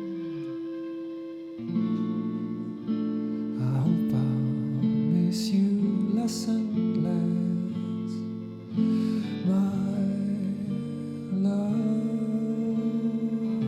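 Instrumental music: acoustic guitar playing held chords that change every second or two.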